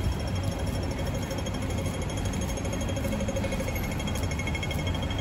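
Steady city street noise, mostly a low rumble of traffic, with no clear single event.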